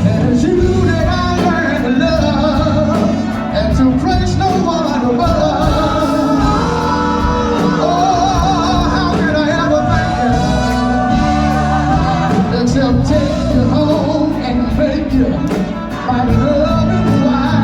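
Live band playing a song with a singer carrying the melody over a steady drum beat.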